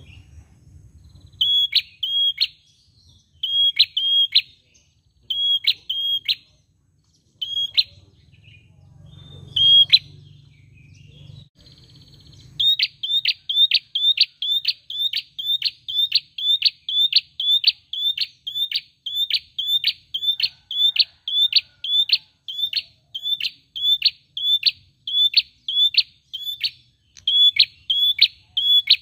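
A caged tailorbird singing loud, sharp, high chirps: at first short pairs of notes every couple of seconds, then, from a little under halfway in, a fast unbroken series of about two or three chirps a second.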